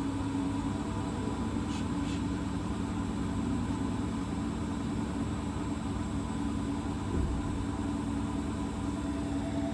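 Hotpoint WT761 Ultima washing machine running its intermediate spin, the motor and drum humming steadily at a constant speed. A single low thud comes about seven seconds in.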